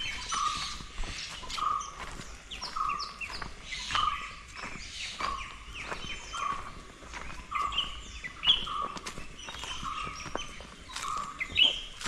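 Several birds calling together in a morning chorus: one repeats a short note about once a second, while others add quick high chirps and falling whistles over it.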